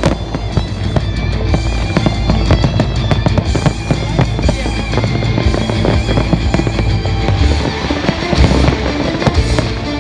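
Fireworks bursting and crackling in rapid, irregular bangs over music.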